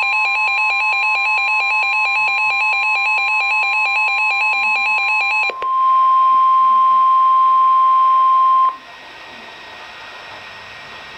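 NOAA Weather Radio's steady 1050 Hz warning alarm tone, at first under an electronic alarm beep that alternates between two pitches about three times a second. The beeping stops about halfway through, the tone goes on alone and louder for about three seconds, then cuts off into faint radio hiss.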